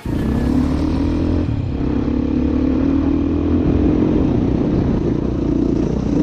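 Motorcycle engine running at steady revs while riding a gravel desert trail.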